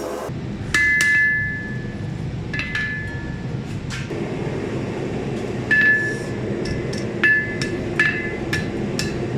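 Hammer blows on hot steel over an anvil, struck at an irregular pace, about ten in all, the heavier ones leaving a clear metallic ring. A steady low rumble runs underneath.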